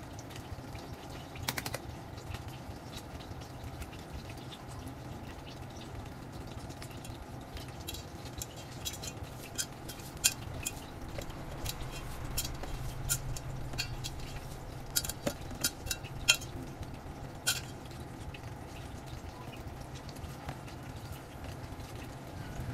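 Hands mixing cooked rice in a stainless steel bowl: sharp clicks and taps against the metal, a few near the start and a run of them through the middle, over a low steady hum.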